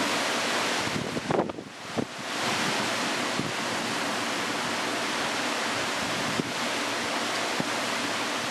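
Steady rushing noise of a thunderstorm's rain and wind, with a few sharp ticks scattered through it and a brief lull about a second and a half in.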